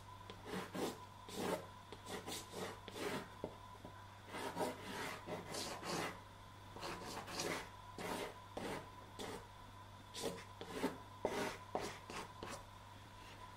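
Soft pastel stick rubbed across a primed linen board in short strokes, about two a second, with a couple of brief pauses.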